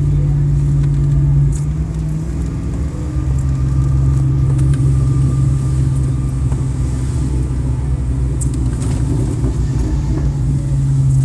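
Vehicle engine droning steadily while driving, a loud low hum heard from inside the cab. Its pitch drops a little about two seconds in and then holds steady.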